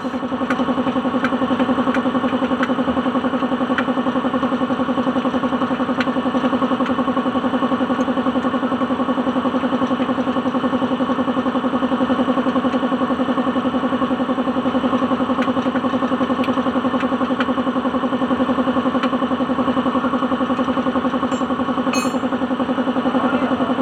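An engine running at a steady idle, a constant even hum that holds unchanged throughout, with a few faint clicks over it.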